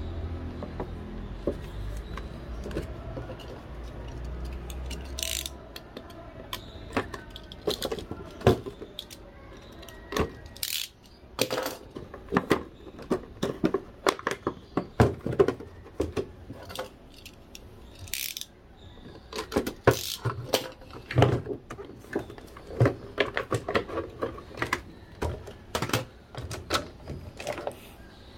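Clear plastic clamshell packaging being pried open and pulled apart by hand, crackling and clicking in irregular sharp cracks and crinkles that come thicker in the second half. A low rumble fades out about five seconds in.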